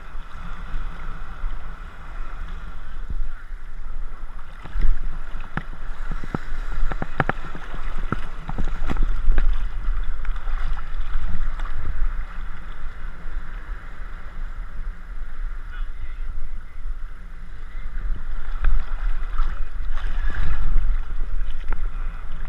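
Shallow surf water sloshing and splashing around a tarpon held alongside a wading angler, with a heavy low rumble of wind and water on a GoPro microphone. A run of sharp splashy clicks comes in the middle, and more near the end.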